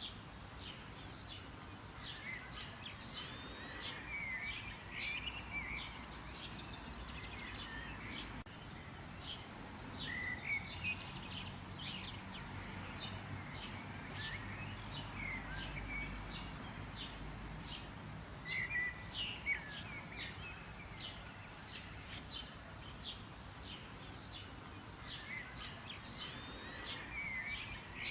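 Birds chirping and twittering, many short high calls overlapping, with one song phrase recurring about every eight seconds. A faint low rumble runs underneath.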